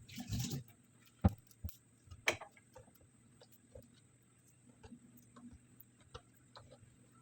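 A tap runs briefly and stops about half a second in, then scattered knocks and light clicks of kitchen utensils being handled, with two sharp knocks about one and two seconds in, over a low steady hum.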